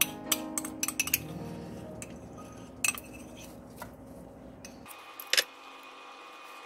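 A utensil clinking and scraping against a plastic butter tub and a nonstick pan as butter is scooped in: a quick run of sharp clicks in the first second, a few more near the middle, and one louder knock about five seconds in.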